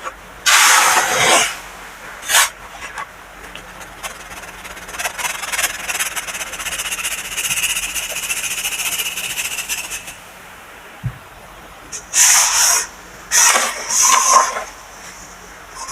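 Compressed baking soda being crushed and worked by hand: a few short, soft crunching strokes, then a fine crackling rustle lasting about six seconds, then three more short crunches near the end.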